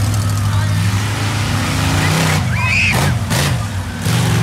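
Monster truck engine running and revving, its pitch rising and falling.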